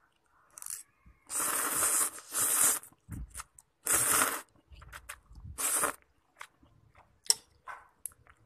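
Someone eating a bowl of instant noodles with kimchi: four loud slurps in the first six seconds, then quieter chewing and a sharp click near the end.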